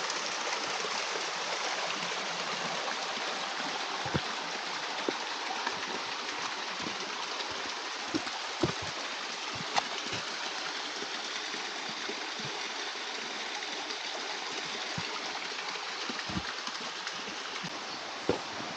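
Beck water rushing steadily over small cascades, with a few scattered sharp knocks.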